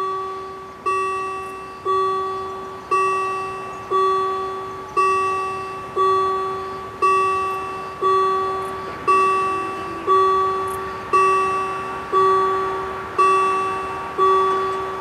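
Level crossing warning bell striking about once a second, each stroke a bright ringing tone that dies away before the next. The ringing stops near the end, once the barriers are down.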